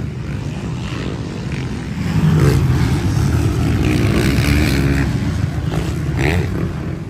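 Motocross bikes racing past on a dirt track, engines revving up and down; the engine noise swells about two seconds in and stays loudest for around three seconds before easing.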